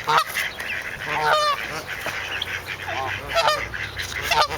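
Ducks calling: a string of short honking calls, with a couple of quick rattling runs of notes about a second and a half in and again past three seconds.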